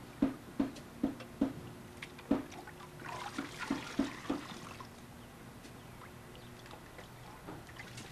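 Water poured and splashing from a small plastic bucket, with a run of short knocks, two or three a second, during the first half.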